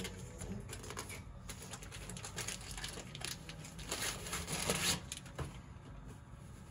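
Clear plastic packaging crinkling and rustling as new bed sheets are handled and pulled out of it, with the loudest crackling about four seconds in.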